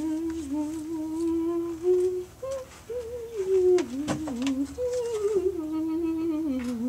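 A woman humming a wandering tune, one voice holding and sliding between notes, with a few soft clicks about four seconds in.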